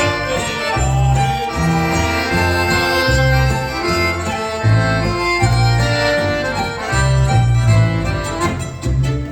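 Live dance band playing a reinlender schottische on reedy, accordion-led instruments with guitar, over a steady bass line.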